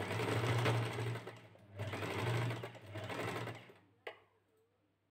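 Electric Wonder Stitch sewing machine stitching fabric in two runs with a brief pause between them. Its motor hums steadily under the rapid needle action, and a single click follows shortly after it stops.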